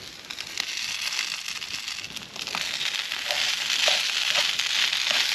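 Reheated leftovers and eggs sizzling in a frying pan on a portable gas stove, a steady frying hiss that grows louder about halfway through, with a fork stirring the food in the pan.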